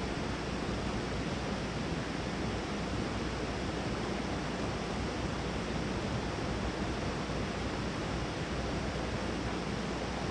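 Mountain stream water rushing over rocks, a steady, even noise.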